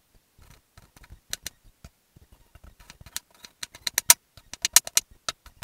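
Kitchen knife chopping red onion on a wooden chopping board: a few spaced taps at first, then a quick run of louder chops over the last two seconds.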